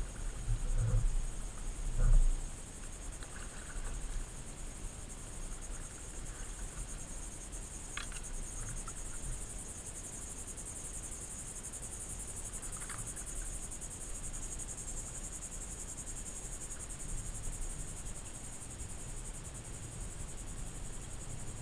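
Steady high-pitched chorus of insects, with a couple of low thumps in the first two seconds and two faint, brief chirps near the middle.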